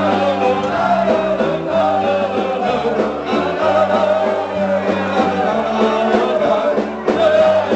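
A live band plays a song with a singing voice.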